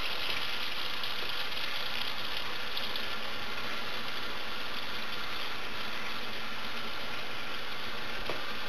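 Kitchen faucet running steadily, a thin stream of water falling into the sink.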